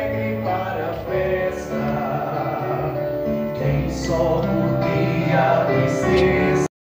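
Church music group singing a hymn over a loudspeaker system. The singing stops abruptly near the end.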